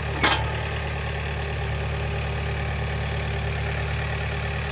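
John Deere 4044M compact tractor's diesel engine running steadily, with one sharp knock about a third of a second in.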